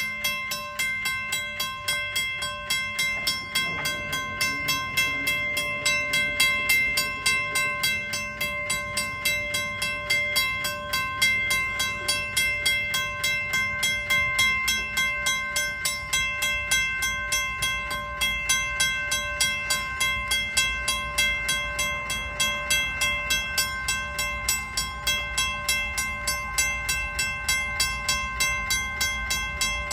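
Railway grade-crossing warning bell ringing in a rapid, steady rhythm while the crossing signals are active, warning of an approaching train. A low rumble builds from about halfway in.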